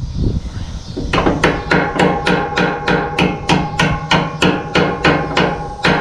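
Hammer striking a steel baler part in a quick, steady series of blows, about four a second, beginning about a second in, each blow leaving a metallic ring.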